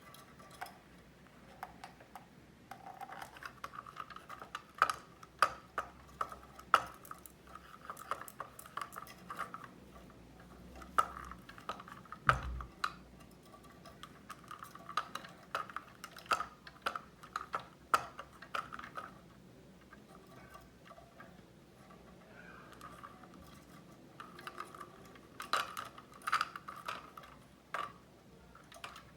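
Green-cheeked conure's beak pecking and prying at a foraging toy to get a treat out: irregular sharp clicks and taps with quieter scratching between, and one dull thump about twelve seconds in.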